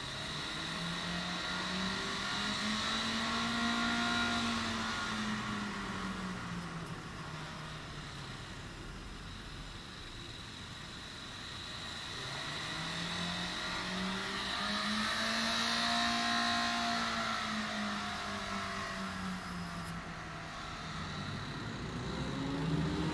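Runaway diesel car engine running uncontrolled, its revs surging up and falling back in two long slow swells. The engine is feeding on its own oil and will race until it runs out of oil.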